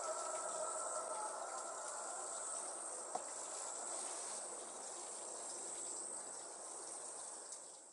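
Insects trilling steadily at a high pitch, with a fainter mid-pitched noise beneath. The sound fades out just at the end.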